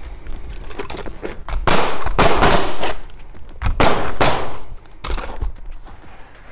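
Pneumatic Bostitch coil roofing nailer firing rapid runs of nails through an asphalt shingle, in three bursts about two, four and five seconds in, the last one short.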